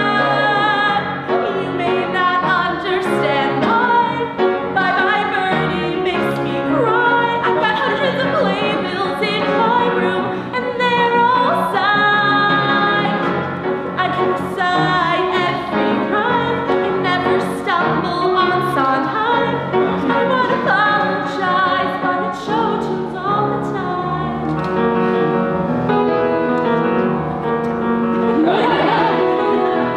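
A female singer belting a musical-theatre song live, with long held notes and vibrato over piano accompaniment; her voice slides upward near the end.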